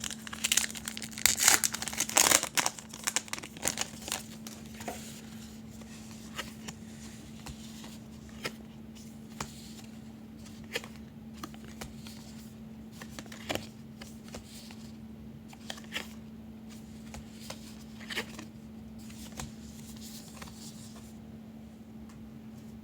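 A 2016 Topps Archives baseball card pack being torn open, its wrapper crinkling for the first few seconds, followed by scattered light clicks and taps as the cards are handled. A steady low hum runs underneath.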